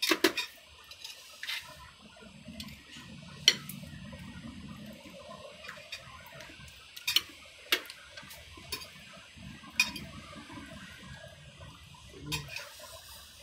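Tableware clinking: spoons, forks and crab-shell pieces tapping against a metal serving platter and plates, a sharp click every second or two.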